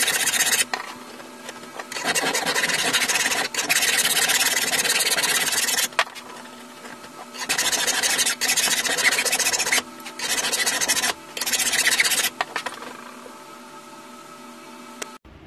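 Flat hand file rasping across a metal rod clamped in a bench vise, in several runs of strokes separated by short pauses; the filing stops near the end.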